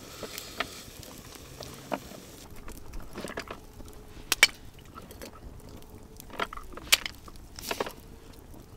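Wood campfire cooking oysters: a low steady hiss with a few sharp clicks and clacks scattered through, from the crackling fire and from oyster shells knocking as they are picked out of a bamboo steamer.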